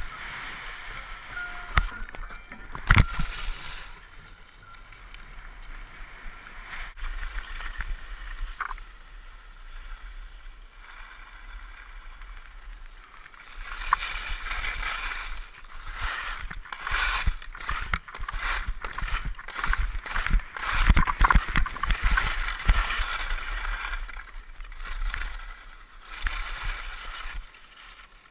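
Skis hissing and scraping over packed snow, heard through a helmet-mounted GoPro, with a few sharp knocks a few seconds in. From about halfway through it gets louder and busier, a quick run of scrapes and knocks, then eases off just before the end.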